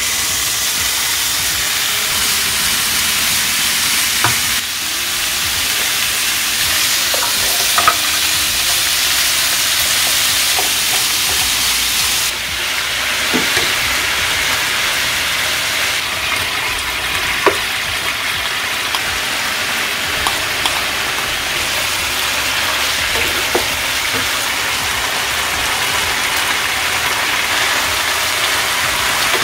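Thin-sliced pork belly and sliced garlic sizzling steadily in a hot stone-coated frying pan. The sizzle starts the moment the meat goes in, and a wooden spatula stirring the meat taps and scrapes against the pan every few seconds.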